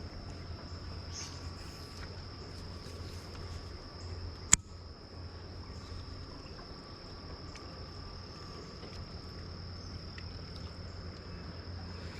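A steady, unbroken high-pitched insect trill over a low steady hum, with one sharp click about four and a half seconds in.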